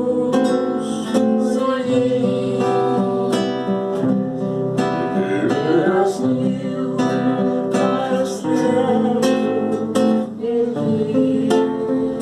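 Acoustic guitar playing an instrumental introduction, chords strummed and plucked at a steady pace with the notes left ringing.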